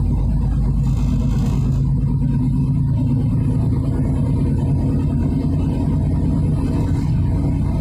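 A moving car heard from inside the cabin: a steady low rumble of engine and tyre noise while driving.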